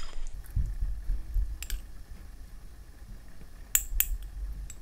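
Metal spoon scraping and clinking against a white enamel bowl as fried onions are spooned into a plastic blender cup: a few sharp clicks, one about a second and a half in and two close together near the end, over a low handling rumble.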